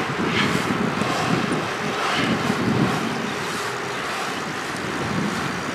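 Wind buffeting the microphone over a steady rolling rumble of longboard wheels on asphalt, swelling and easing every second or so as the board is pumped.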